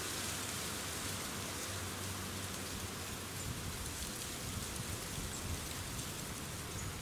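Steady, even outdoor hiss with scattered faint ticks, sounding like light rain pattering in the woods.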